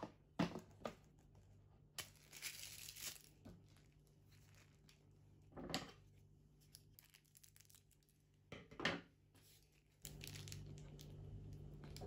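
Quiet handling of cake-decorating gear: a few knocks as a plastic cake turntable and a foil cake board are set down, and a crinkling rustle. A low steady hum comes in near the end.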